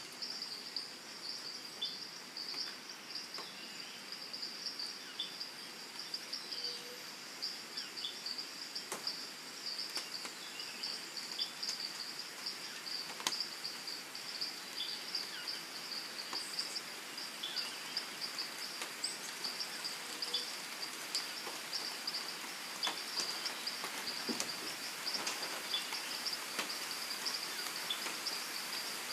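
Tropical rainforest ambience: a steady, high-pitched insect chorus pulsing without a break, over a soft even hiss. Short bird chirps and scattered sharp ticks come in here and there.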